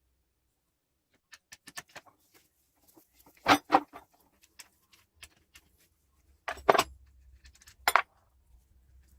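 Metal parts and tools being handled on a bench: scattered light clinks, then a few sharp metallic knocks, in pairs about three and a half and six and a half seconds in and once more near the end.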